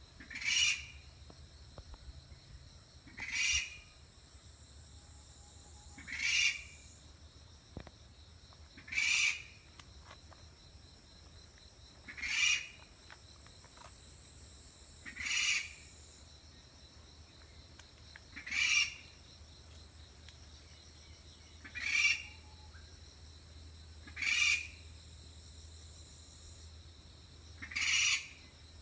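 Okinawa rail giving its alarm call: ten short calls spaced about three seconds apart, given by a bird on guard against an intruder nearby. A steady high-pitched insect chorus runs underneath.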